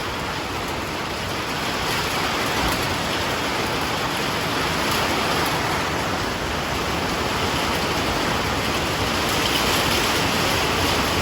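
Rain falling steadily, an even hiss that grows a little louder about two seconds in.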